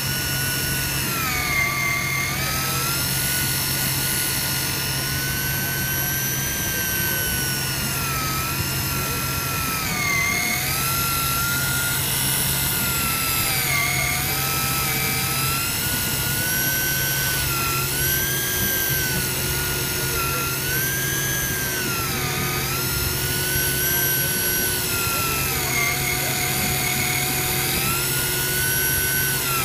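Electric deep-drop fishing reel's motor whining as it winds in line, its pitch rising and falling every few seconds.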